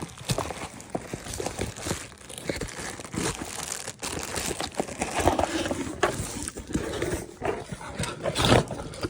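Packaging being handled and opened: irregular rustling and crinkling with scattered short knocks and clicks.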